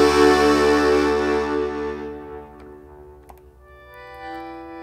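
Schwyzerörgeli (Swiss diatonic button accordion) holding a chord that pulses about four times a second, fading away over the first two seconds. After a quiet gap with a few faint clicks, a new sustained chord swells in near the end.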